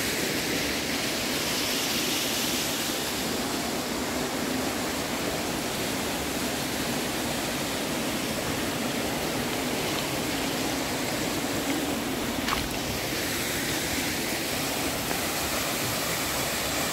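A mountain stream running and splashing over rocks and small falls, a steady rushing; one short knock about three-quarters of the way through.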